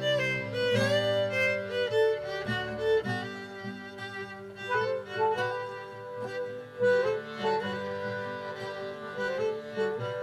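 Acoustic folk band of violin, accordion, saxophone and guitar playing a slow Irish-style reel, the violin prominent on the melody.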